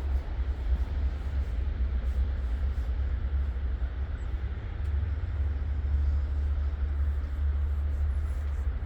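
Outdoor city street ambience: a steady deep rumble under a faint hiss, with no distinct events.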